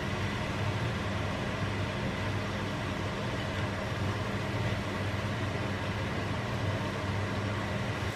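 Vegetables cooking in a frying pan on the stove, a steady hiss with a low hum underneath.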